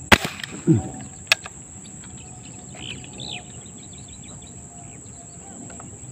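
An airgun fired once at a fish in the water: a single sharp crack. It is followed by a short, low sliding sound and a sharp click about a second after the shot. Insects chirr steadily throughout.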